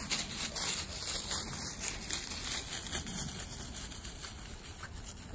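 Footsteps and paws crunching and rustling through dry fallen leaves, an irregular crackle with no steady rhythm.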